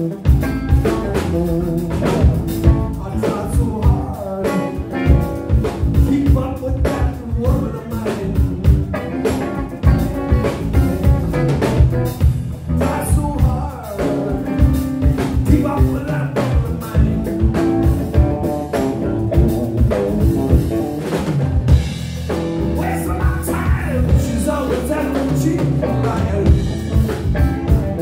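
Blues-rock band playing live: electric guitar, electric bass and drum kit, with steady drum hits under sustained guitar notes.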